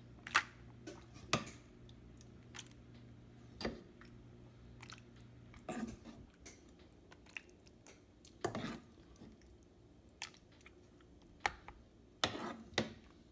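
A plastic serving spoon spreading ground-beef meat sauce over lasagna noodles in a glass baking dish: irregular soft wet squelches and light clicks of the spoon against the dish. A faint low hum dies away about halfway through.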